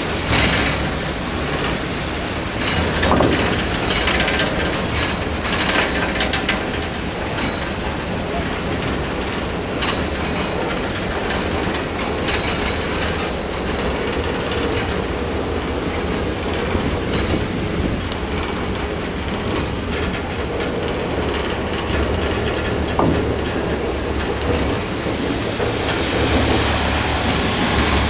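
Train rolling over jointed track: a steady rumble from the running gear, with sharp clicks every few seconds as the wheels cross rail joints. A brighter hiss rises near the end.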